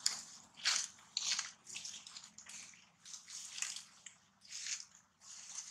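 Monkey eating soft, wet food noisily, with a run of short wet smacking and squelching sounds roughly every half second to second.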